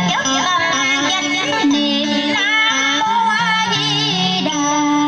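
Vọng cổ singing with heavy vibrato over melodic instrumental accompaniment, settling into a long held note near the end.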